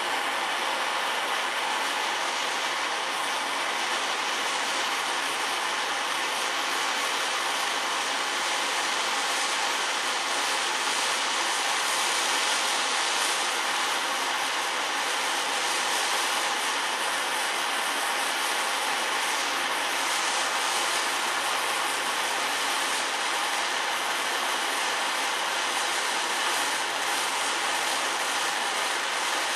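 Gas blowtorch flame hissing steadily while played against a wooden board.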